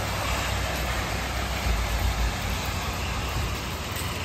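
Heavy rain from a tropical storm band falling steadily. A low rumble swells to its loudest about two seconds in, then eases.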